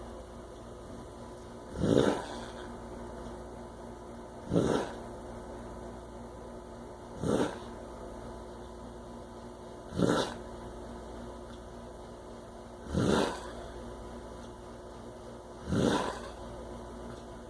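Heavy snoring likened to a chainsaw: six short, harsh snores, one roughly every three seconds, each rising well above a steady faint background hum.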